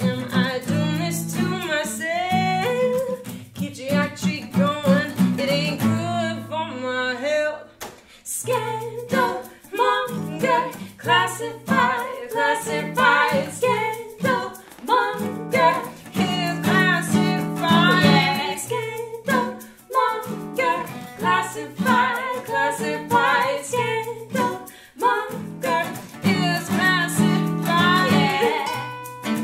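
Live acoustic song: a woman scat-singing wordless lines over two strummed acoustic guitars, with a hand shaker and a second female voice. The music drops out briefly about seven seconds in, then picks up again.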